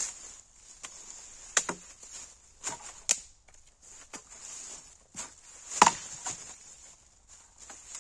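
Irregular sharp cracks and knocks, four of them loud and the loudest a little before six seconds in, with fainter ticks between, over a steady high hiss.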